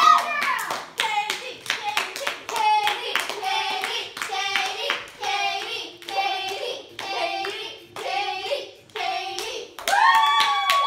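Several people clapping their hands along to children singing a tune in short phrases. The singing swells into a louder, held note near the end.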